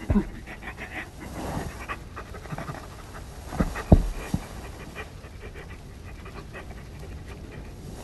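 A dog panting quickly, with a few soft thumps about four seconds in.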